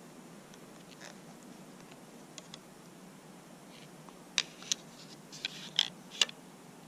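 A hand handling a crossbow: about five sharp, short clicks and scrapes of hard gear in quick succession over the last two seconds or so, over a steady low hiss.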